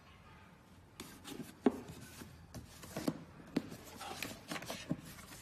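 Cardboard shoebox being handled and turned over: the box scrapes and rubs, with a series of sharp knocks and taps starting about a second in, the loudest soon after.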